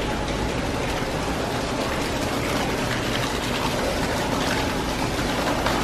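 Waterfall splashing: a steady, even rush of falling water.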